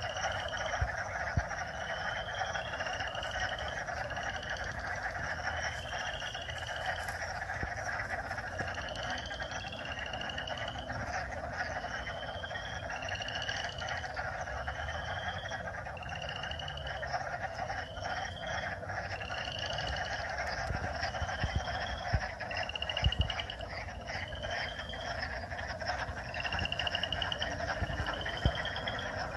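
Spring frog chorus in a wetland pond: a dense, continuous chatter of many frogs calling at once. Over it, single frogs give short rising trills, one every second or two, often in pairs.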